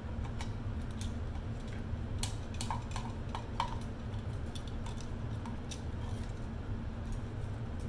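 Small metallic clicks and clinks of a hand tool and wires against a steel electrical box, scattered throughout, with a quick run of clinks a few seconds in. A steady low hum runs underneath.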